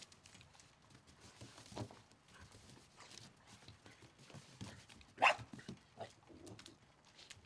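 Small dogs playing on a snowy wooden deck: scattered paw steps and scuffling, with one short bark about five seconds in.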